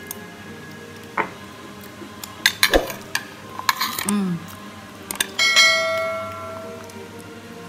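Metal spoons clinking and scraping against a ceramic plate in scattered sharp ticks. About five and a half seconds in, a bell chime rings out and fades over a second or so: the subscribe-button sound effect.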